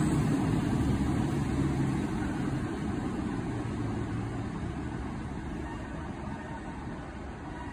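Northern Class 150 diesel multiple unit pulling away from a platform, its diesel engine and wheels rumbling and fading steadily as it moves off.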